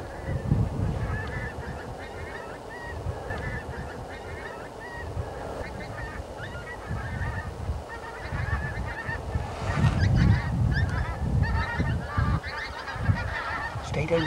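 A flock of pink-footed geese calling, many high, short honks overlapping, growing louder and denser about ten seconds in. Wind buffets the microphone in repeated low rumbles.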